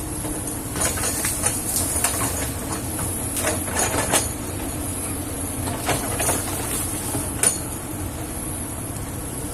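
Kobelco excavator's diesel engine running steadily, with irregular metallic clanks and creaks from the machine at work; the sharpest clank comes about seven seconds in.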